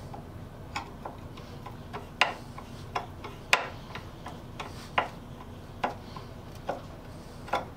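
Irregular sharp metal clicks and taps, about ten of them, from a small screwdriver and saw-handle screws knocking against a small metal tin and its lid. The loudest come about two and three and a half seconds in.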